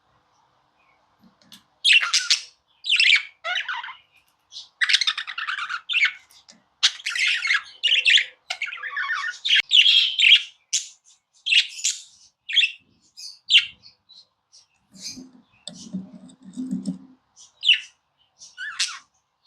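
Budgerigar chattering in a run of quick chirps, squawks and warbles, starting about two seconds in. A low murmur joins for a couple of seconds near the end.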